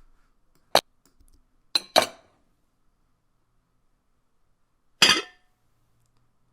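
Sound effects of a plate being set down on a table, played one after another: a single sharp clink, then a quick double clatter about two seconds in, then a longer clatter about five seconds in.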